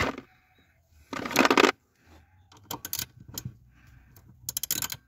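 Metal hand tools clinking and rattling as an Allen key is fitted and worked on a car-seat mounting bolt: a short scraping rattle about a second in, then scattered clicks and a quick run of clicks near the end.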